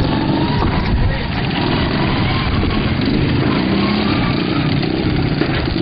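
Several small racing engines running together at speed, a steady drone whose pitch wavers up and down as the machines rev.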